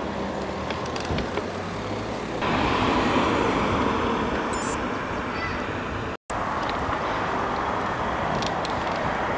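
Steady road and traffic noise heard while riding a bicycle: an even rush that gets louder about two and a half seconds in. The sound cuts out completely for a moment about six seconds in.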